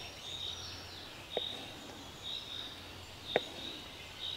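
Small knife slicing a button mushroom on a wooden cutting board: the blade knocks against the board twice, about two seconds apart. A high chirping repeats throughout in the background.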